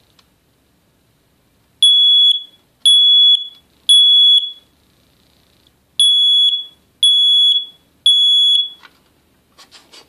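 First Alert SA68 smoke detector sounding its test alarm after its test button is pressed: two rounds of three loud, high-pitched beeps of about half a second each, with a pause between the rounds. This is the temporal-three evacuation pattern. It stops about a second before the end.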